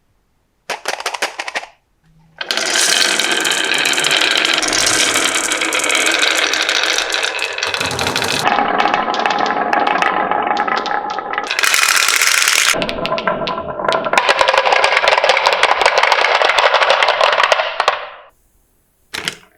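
Many marbles rolling and clattering down a toy marble run track as a rapid, dense rattle. A short burst comes first, then a brief pause, then a long continuous run that stops shortly before the end.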